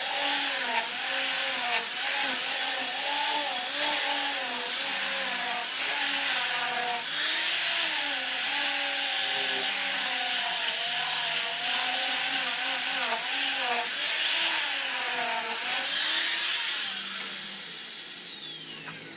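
Handheld electric sander running on ipil wood, its motor whine dipping and rising as it is pressed and moved over the board. Near the end it is switched off and winds down with a long falling whine.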